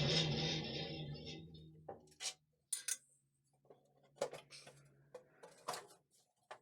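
DeWalt 3501 bandsaw running down after being switched off, fading out over about two seconds, with a low hum lingering a few seconds more. Its vibrating, wavering blade comes from worn-out wheel tyres. About half a dozen sharp clicks and knocks follow.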